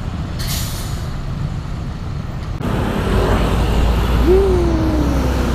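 Large coach engines running in a bus yard, with a short hiss of air about half a second in. After an abrupt change a little over two seconds in, a Mercedes-Benz OC 500 RF 2542 double-decker coach drives past with a loud low engine rumble. Its whine rises and then slowly falls.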